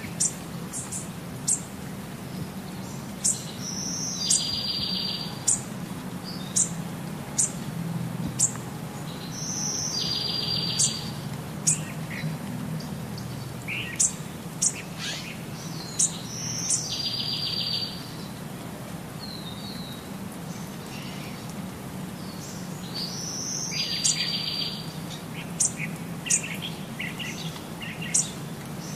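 Birds singing and chirping: many short, sharp high chirps, and one bird repeating the same phrase, a high note followed by a buzzy trill, about every six to seven seconds. A steady low hum runs underneath.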